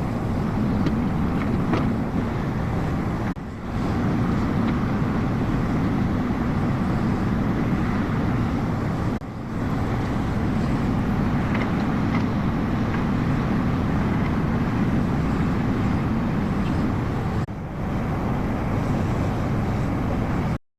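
JCB 380 tracked excavator's diesel engine running steadily, with a few faint clicks or clanks. The sound drops out briefly three times.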